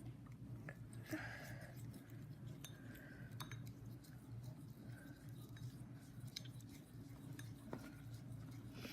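Plastic spork stirring glue and glitter glue in a bowl: faint scattered clicks and soft scrapes.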